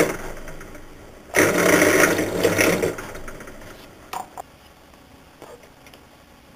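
Bench drill press boring into a small wooden clamp piece. The tail of one hole fades over the first second, and a second burst of drilling runs for about a second and a half. Past the middle come two light clicks as the workpiece is shifted.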